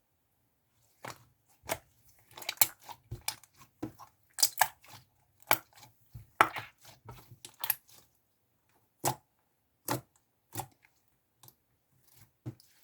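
Slime being pressed and stretched by hand, giving irregular sharp clicks and pops that come thick for several seconds and then grow sparser.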